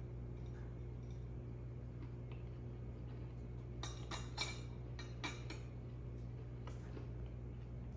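A metal fork cutting through a slice of cake, clinking and scraping against the plate: a quick cluster of about six clicks near the middle, over a steady low hum.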